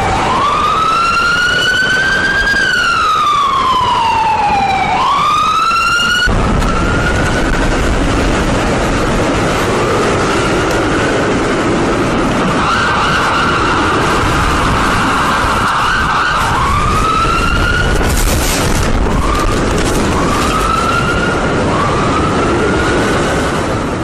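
Emergency vehicle siren wailing in slow rising and falling sweeps. About six seconds in the sound cuts to a noisier background with a steady rumble, through which a siren sounds in shorter rising whoops.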